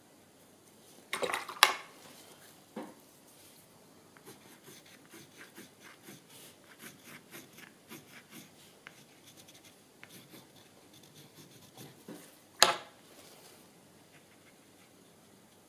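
Paintbrush bristles scratching and scrubbing on watercolour paper in a run of short, soft strokes. Two louder sharp knocks stand out, one about a second in and one near the end.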